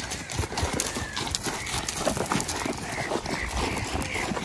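Hooves of several horses on a sand and shingle beach, an irregular run of crunching hoofbeats heard from the saddle of one of them.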